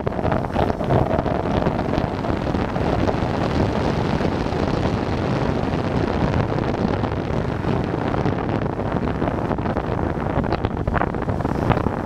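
Steady wind noise rushing over the microphone of a motorcycle on the move.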